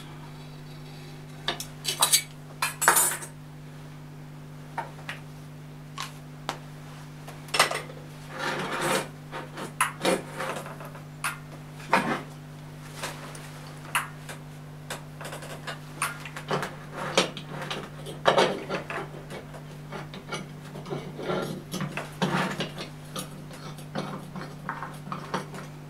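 Metal tools and parts clinking and knocking on a metal workbench as they are handled and set down, in irregular short strikes, over a steady low hum.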